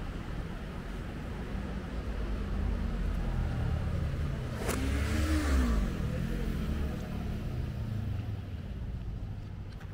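A motor vehicle passing close by, played backwards: a low engine and road rumble swells to a peak a little past halfway, with an arching engine tone and a sharp click just before the loudest point, then fades.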